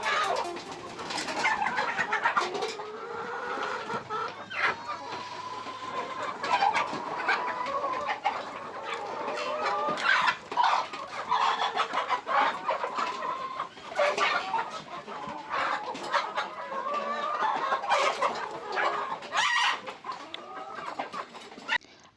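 A flock of improved Kienyeji layer hens clucking and calling, many calls overlapping, some drawn out, with scattered sharp clicks among them.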